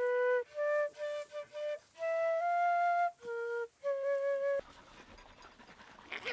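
Music: a short melody of separate notes on a flute-like wind instrument, some held and some quick, breaking off about four and a half seconds in and leaving low background noise.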